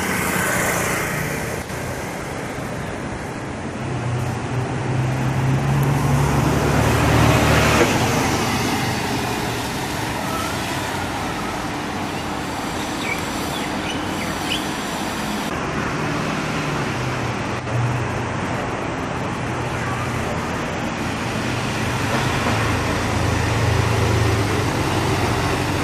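Mercedes-Benz O530 Citaro city bus's diesel engine running amid road traffic, swelling to its loudest about seven seconds in as the bus passes close, then a steady engine hum.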